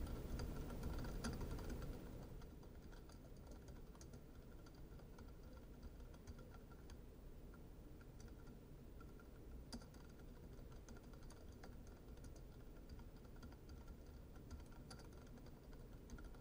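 Faint, irregular keystrokes of typing on a computer keyboard. A low background hum drops away about two seconds in.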